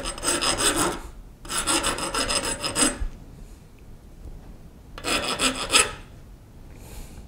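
Small hand file rasping along the edges of a cast-iron engine casting held in a vise. It comes in three spells of quick back-and-forth strokes, with a pause of about two seconds in the middle and another near the end.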